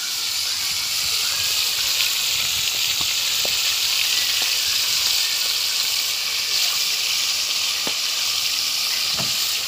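Sea fish frying in hot oil: a steady sizzle with a few small pops.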